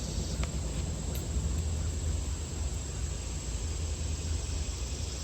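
Quiet outdoor background: a steady high-pitched insect drone over a low rumble, with one faint click about half a second in.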